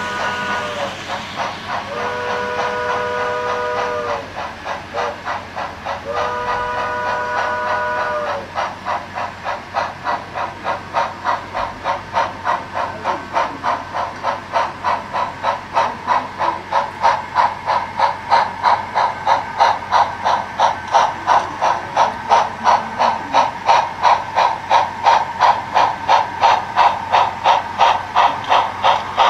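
HO scale model steam locomotive's sound system sounding its chime whistle, several notes at once, in three blasts: one ending about a second in, then two more of about two seconds each. Then a steady exhaust chuff at about two to three beats a second as the train rolls, louder in the second half.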